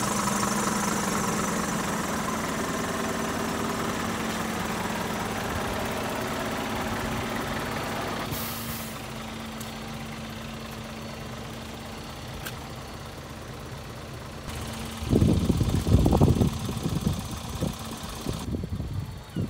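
Scania G490's 13-litre straight-six diesel idling with a steady low hum, which drops in level about eight seconds in. From about fifteen seconds in, irregular low rumbling buffets of wind on the microphone cover it.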